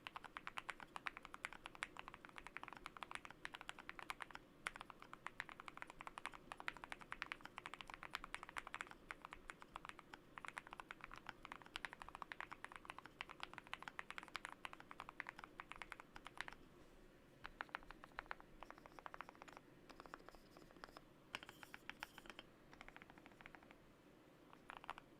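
Typing on a Monsgeek M3 mechanical keyboard fitted with lubed Everglide Aqua King linear switches and foam and tape mods. Fast, continuous keystrokes for about the first sixteen seconds, then slower, scattered key presses with short pauses.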